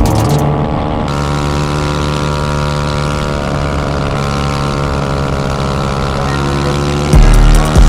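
A small engine running at a steady speed, its pitch holding, with a loud low burst near the end.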